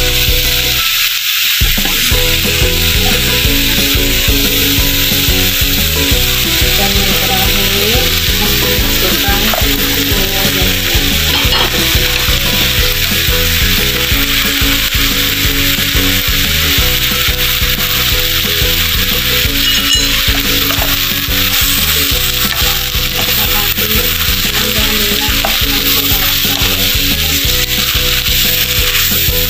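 Cabbage, greens, egg and noodles sizzling and crackling in a hot wok while a wooden spatula stirs and scrapes them around the pan.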